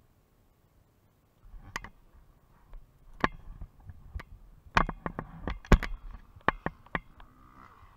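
A dozen or so sharp knocks and clicks, with some rustling between them, as someone in motocross boots and gear climbs out of a pickup truck's cab with the camera on their body; the first second or so is nearly silent.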